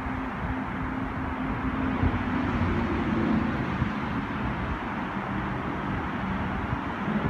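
Road traffic: a steady wash of noise with a low engine hum from passing vehicles, shifting slightly in pitch about halfway through.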